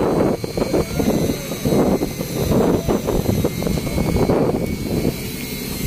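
Wind buffeting the microphone on a fishing boat's open deck in rough weather: an uneven, gusting rumble over a faint steady hum from the boat's machinery. The gusts ease about five seconds in.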